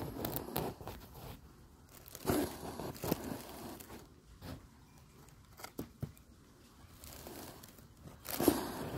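Close handling noise: short bursts of rustling and crackling a few seconds apart, with a few sharp clicks in the middle, as a hedgehog is touched and held.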